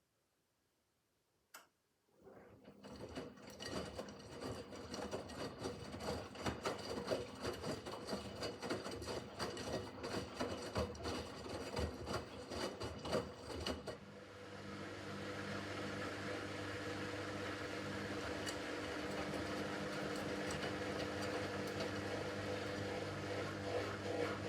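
Miele W5801 WPS front-loading washing machine: a click, then the drum starts turning with the laundry tumbling and knocking for about twelve seconds, after which the motor settles into a steadier hum that slowly grows louder.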